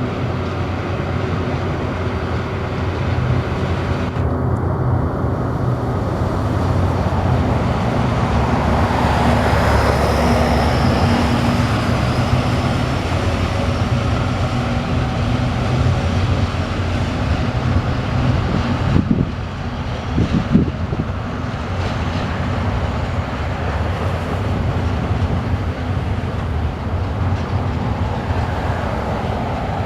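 TasRail diesel log train running past: a steady low diesel engine hum, with wheel and rail noise that swells about ten seconds in. A few sharp clanks come about two-thirds of the way through.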